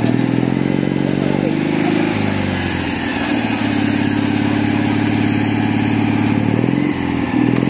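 Engine of a coursing lure machine running under load, its pitch rising over the first two seconds, dropping, holding steady, then falling again near the end as the speed of the pulled lure is changed.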